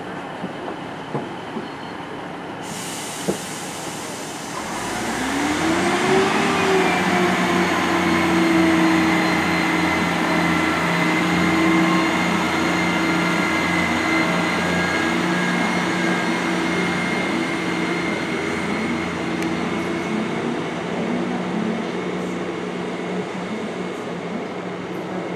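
Class 158 diesel multiple unit pulling away from the platform. It idles at first, then about five seconds in its diesel engine revs up with a rising whine. The engine note then holds steady, slowly fading as the train draws away.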